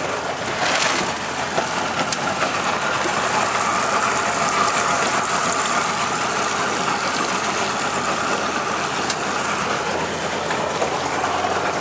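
A boat's motor running steadily, a constant even drone.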